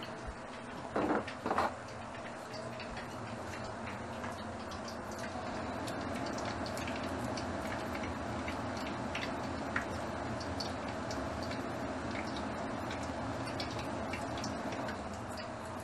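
Oil sizzling in a wok with small pieces frying in it: a steady hiss dotted with many small crackles and pops. Two brief louder knocks about a second in.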